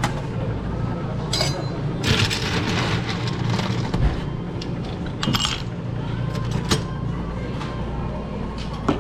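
Busy restaurant dining-room background: a steady low hum with faint indistinct chatter and a few sharp clinks of tableware.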